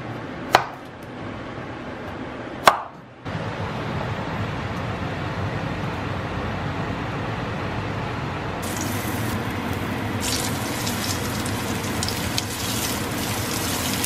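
A kitchen knife cuts through potatoes onto a plastic cutting board: two sharp knocks. Then a steady hiss from a pot of water heating for the potatoes, and from about ten seconds in a crackling sizzle of breaded vegan shrimp frying in oil in a pan.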